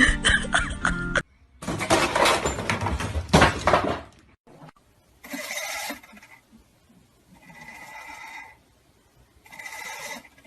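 A clatter of knocks and rattles, then an animal calling three times, each call about a second long.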